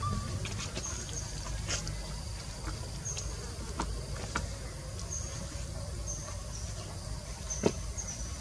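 Insects chirping in short, high-pitched bursts at irregular intervals of about a second, over a steady low rumble, with scattered faint clicks and one sharper click near the end.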